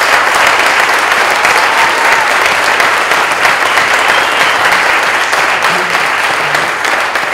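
Audience applauding steadily, a dense, even clapping.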